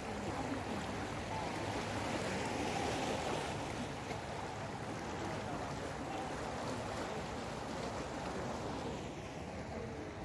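Small waves washing against a rocky shore, a steady rushing surf sound that eases slightly near the end.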